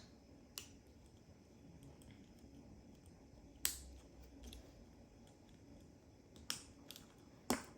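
Small plastic building-brick parts clicking as wheels are pressed onto a toy tractor model: a few sharp, scattered clicks, the loudest about four seconds in and just before the end.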